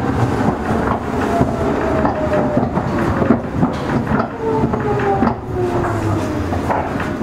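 Meitetsu 6000 series electric train car in motion: wheels clicking over rail joints under a steady rumble, with a motor and gear whine that falls in pitch as the train slows.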